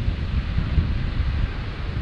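Wind buffeting the microphone: a loud, fluttering low rumble over a steady hiss.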